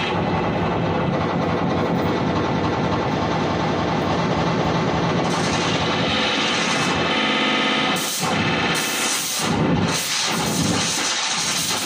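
Live harsh noise from tabletop electronics and effects boxes: a dense, continuous wall of distorted noise that breaks into a choppy, stuttering pattern about eight seconds in.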